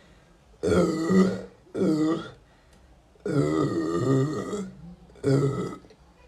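A woman burping loudly four times in a row, the third burp long and drawn out.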